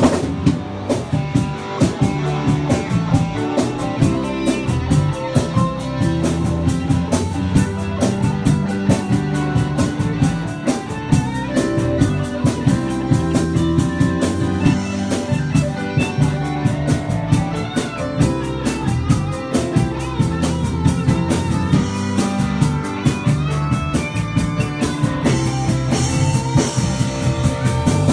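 Live band playing with electric guitars, drum kit and keyboard, the drums keeping a steady beat.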